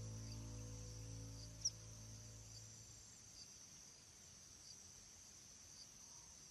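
Faint, steady chirring of night insects with small repeated chirps. A low music drone fades out over the first two to three seconds, and a single sharp click comes about a second and a half in.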